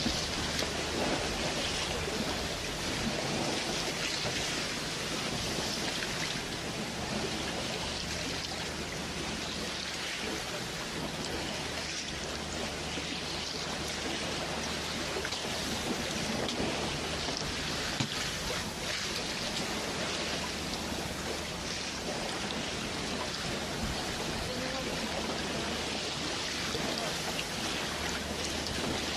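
Steady rain falling, an even hiss with a low steady hum underneath.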